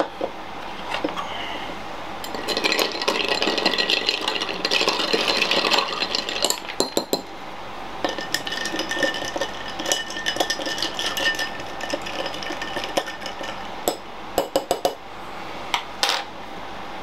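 Glasses and bottle clinking and knocking as drinks are mixed with Sprite. A stretch of pouring and fizzing runs from about two to six seconds in, and sharp clinks come in clusters near the middle and end.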